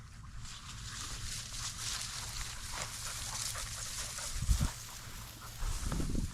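Dry grass and brush rustling and crackling as a hunter walks through upland cover, with a low thump about four and a half seconds in and a few more near the end.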